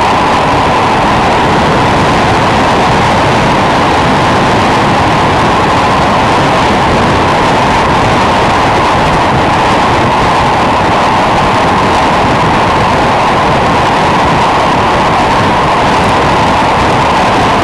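Steady, loud wind rush on a bike-mounted camera's microphone as a road bike descends at speed.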